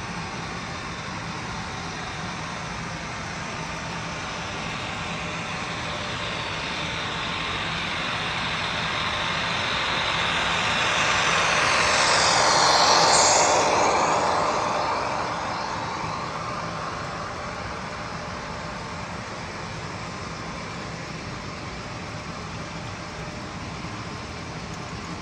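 Model train with mid-train CSX diesel locomotives rolling past, a steady mechanical running noise over a low hum. It swells to its loudest about halfway through as the locomotives pass close by, then falls away as the hopper cars follow.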